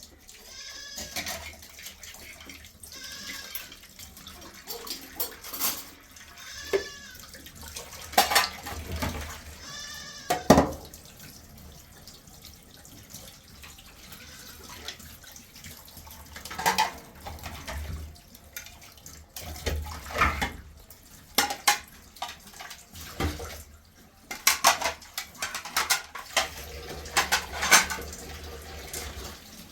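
Goats bleating, about four calls in the first ten seconds, followed by scattered sharp knocks and water splashing.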